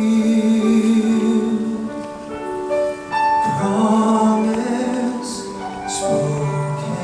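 Choir and orchestra performing gospel-style Christmas music, the choir singing long held notes. It breaks off briefly about three seconds in, then starts a new phrase.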